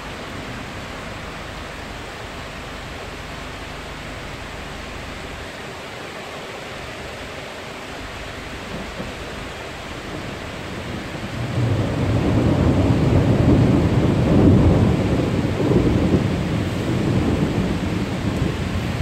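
Steady hiss of rain, then about halfway through a long, loud, low rumble of thunder sets in, swells and goes on rumbling to the end.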